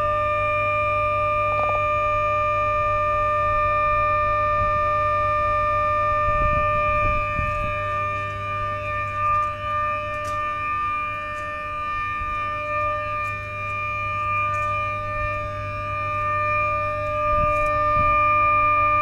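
500 kV HVDC smoothing reactor humming: a loud, steady, high-pitched whine made of several fixed tones over a low hum, without change. The hum comes from the reactor on the DC side of the converter, where it absorbs the harmonic ripple to smooth the DC current.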